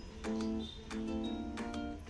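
Background music: an acoustic guitar strumming chords in a steady rhythm, a strum roughly every half second.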